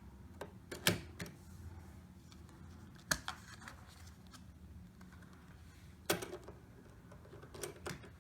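A few scattered light clicks and taps from hands working a CPU into a motherboard's socket, over a faint steady low hum.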